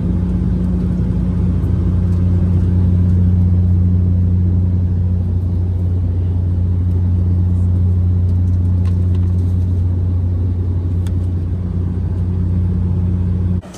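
Steady, loud drone of an airliner's engines and airflow heard inside the passenger cabin, with a strong low hum.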